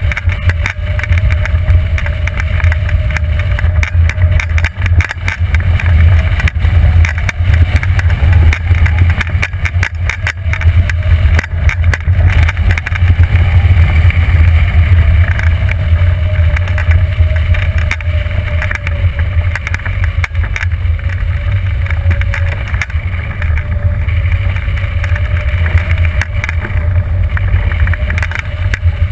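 Rushing airflow buffeting the microphone of a wing-mounted camera on a hang glider in flight. It is a loud, steady rush, heaviest in the low end, with scattered gusty crackles and a faint thin tone wavering slightly underneath.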